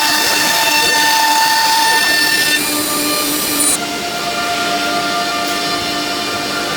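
ELE-1530 nesting CNC router working wood: a loud, steady machine whine made of several held tones. The tones shift about two and a half seconds in, and a high whine cuts off near four seconds in.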